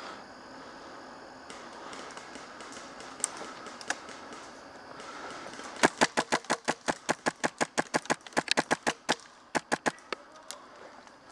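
M4-style airsoft rifle firing a rapid string of sharp shots, about six a second, for roughly four seconds starting about six seconds in, with a brief pause near the end. Two single shots come a few seconds earlier.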